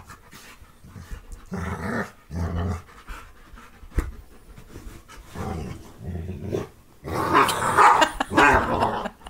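Two dogs play-growling while they wrestle, in several short rough bouts with a louder, longer stretch of growling near the end. A single sharp knock about four seconds in.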